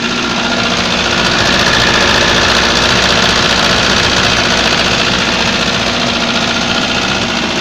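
GAZ-3110 Volga engine running with a knock, which the owner suspects is a worn piston pin.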